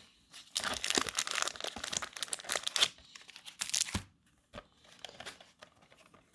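A plastic Pokémon card blister pack being torn open by hand, with dense crinkling and tearing for about three seconds, then lighter rustling and a few clicks as the contents are handled.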